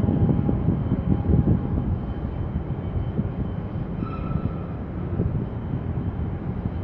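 Wind buffeting the phone's microphone at the harbour edge: an irregular, gusty low rumble, with faint brief tones about four seconds in.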